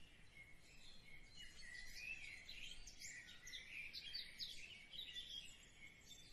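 Faint birds chirping in the background: many short, quick chirps.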